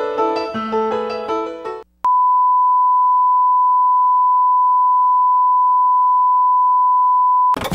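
Closing theme music with bright keyboard-like notes ends about two seconds in. After a brief gap, a steady single-pitch broadcast test tone sounds, the tone that goes with colour bars, held unchanged until it cuts off just before the end as another loud sound begins.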